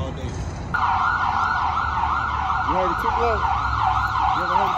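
Emergency vehicle siren in a fast yelp, its pitch sweeping quickly up and down about three times a second, starting about a second in over a low steady rumble.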